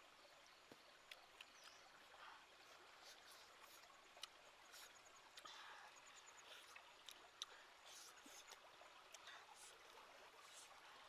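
Near silence: faint running stream water, with scattered soft clicks.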